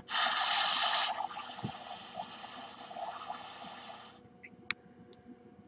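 Electronic sound effect from the toy boat's built-in speaker: a hissing, watery rush, strongest for about the first second, then fading and cutting off about four seconds in.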